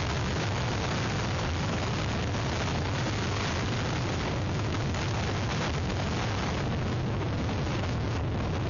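Hurricane wind buffeting an outdoor webcam's microphone: a steady, dense rush of noise with a heavy low rumble.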